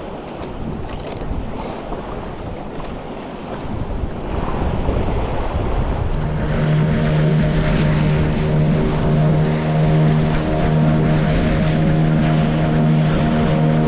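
Wind and water noise against a small boat, then from about six seconds in the boat's motor running steadily as the boat gets under way.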